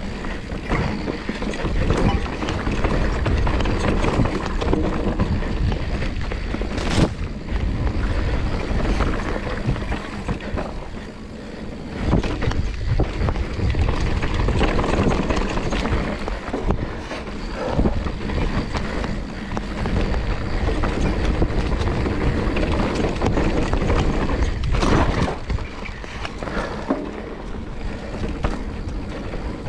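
Mountain bike riding fast down a dirt trail: wind buffeting the camera microphone over the tyres rolling on dirt and the bike rattling, with a sharp knock about seven seconds in.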